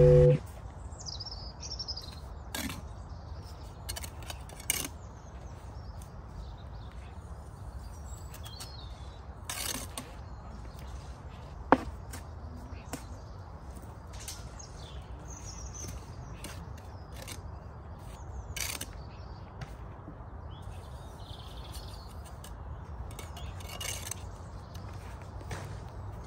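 Bricklaying work on an outdoor building site: scattered knocks and taps of bricks and a trowel over a steady low rumble, with one sharp clink about twelve seconds in. Small birds chirp now and then.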